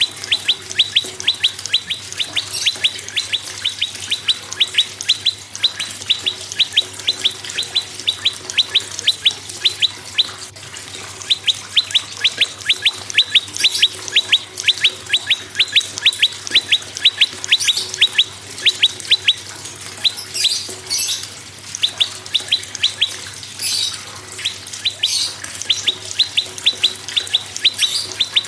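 Prenjak singing a fast, even series of sharp chirps, about four a second, with a short break near the middle. Higher, scratchier notes cut in every few seconds in the second half, over a faint steady hum.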